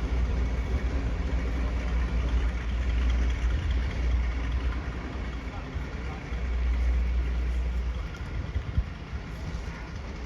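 Class 42 Warship diesel-hydraulic locomotive's engines idling with a steady deep rumble, alongside faint voices.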